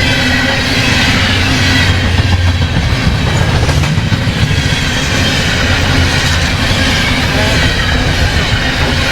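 Long, heavy Canadian National freight train of loaded potash hopper cars rolling past at track speed: a loud, steady rumble of wheels on the rails.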